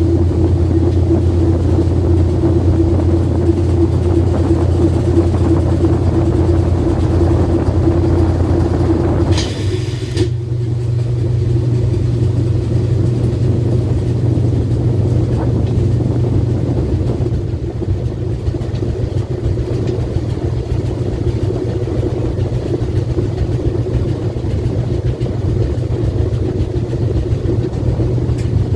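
Washing machine spinning, heard from inside the turning drum: a loud, steady low hum and rumble. About nine and a half seconds in there is a brief sharp noise, and after it the hum carries on at a slightly changed pitch.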